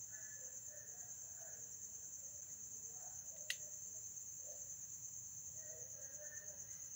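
Faint, steady high-pitched chirring of crickets in the night, with one sharp click about three and a half seconds in.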